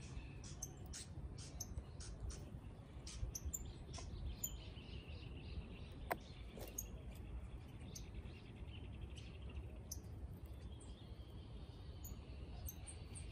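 Small birds chirping: scattered short, high call notes over a steady low rumble, with a single sharp click about six seconds in.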